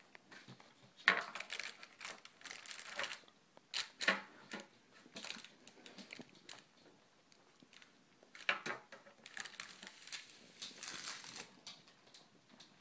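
A dog mouthing and pulling at a heart-shaped cardboard chocolate box, the box and its wrapping crinkling and rustling in irregular bursts.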